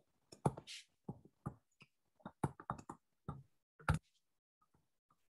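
Irregular short taps and clicks of a stylus on a touchscreen during handwriting, about a dozen in quick succession, stopping about four seconds in.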